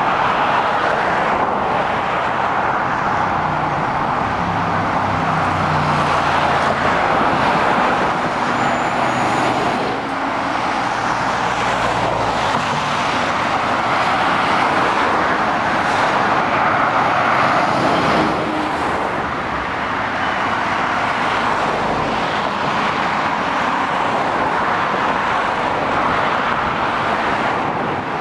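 Steady motorway traffic: lorries and cars passing below, with a continuous tyre-and-road rush. Between about 4 and 10 seconds in, a heavy lorry's diesel engine drone stands out low beneath the rush as it passes.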